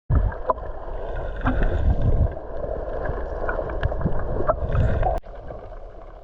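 Shore water washing and gurgling with wind buffeting the microphone, a heavy low rumble under it and a few small clicks. It starts abruptly and drops to a quieter wash about five seconds in.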